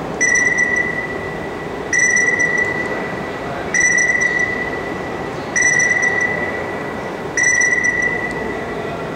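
Electronic radar-style ping from a hands-on radar and stealth exhibit, repeating about every 1.8 seconds, five times: a high tone that starts sharply and fades. It plays over a steady background din.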